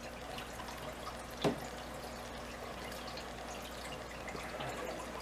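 Faint, steady trickling and dripping of aquarium water over a low steady hum, with a single sharp knock about a second and a half in.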